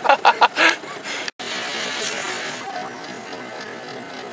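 Fireworks strapped to an RC speedboat going off in a quick string of four or so sharp bangs within the first second. After a brief dropout, a steady rushing hiss follows.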